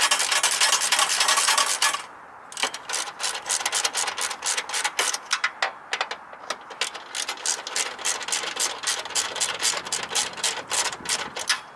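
Hand ratchet wrench clicking as it is worked back and forth on a fastener: a fast continuous run of clicks for about two seconds, then slower, separate clicks several times a second.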